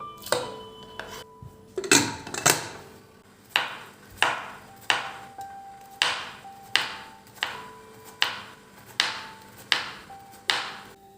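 A regular series of sharp knocks, about one every 0.7 seconds, each with a short ringing tail, over soft background music.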